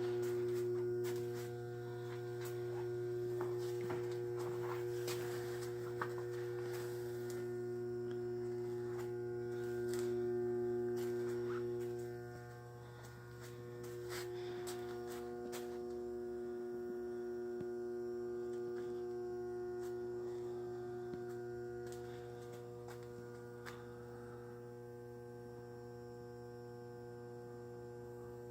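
Steady electrical mains hum, a stack of steady tones, with scattered light clicks and knocks mostly in the first half.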